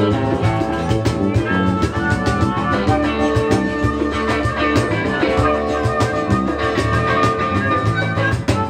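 A live rock band playing: electric guitar and drum kit keep a steady beat, with long held notes on top from a guest harmonica.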